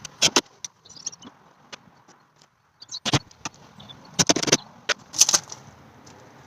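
Irregular sharp knocks and clatters, some in quick clusters, from parts and tools being handled while a van's door trim is put back together.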